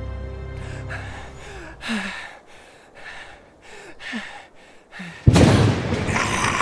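Heavy panting from a male voice actor: about five breathy huffs and gasps, roughly a second apart. About five seconds in, a sudden, loud creature roar cuts in: the sound effect for the Black March waking up.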